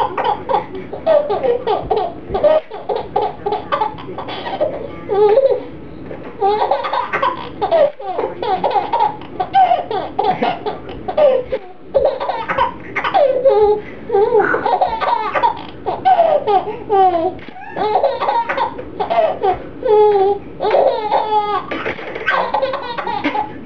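A baby laughing in fit after fit, in short repeated bursts with brief breaks between them.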